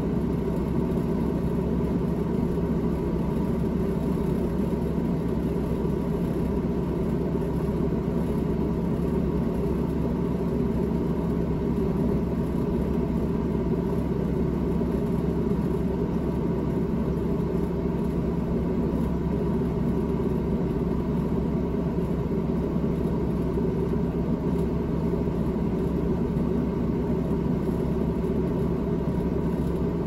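Evaporator fan of a GE GTH18XCTZRBB refrigerator running in the freezer behind its grille, a steady hum with a low rumble from a fan motor that is going bad.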